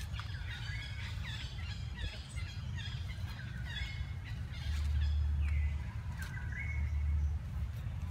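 A quick series of short, high chirping animal calls, then two longer calls about five and six and a half seconds in. Beneath them runs a low rumble, loudest during those later calls.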